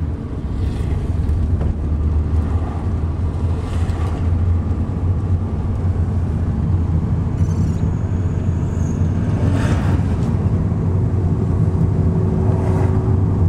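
Inside a taxi's cabin while driving: a steady low hum of engine and road noise, with a few short louder rushes of noise.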